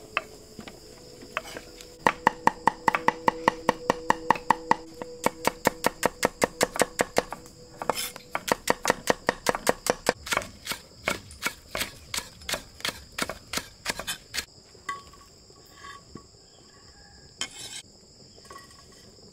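Kitchen knife chopping shallots on a thick wooden chopping board: a quick, even run of sharp knocks, about four or five a second, that slows and thins out after about twelve seconds. Crickets chirr steadily behind it.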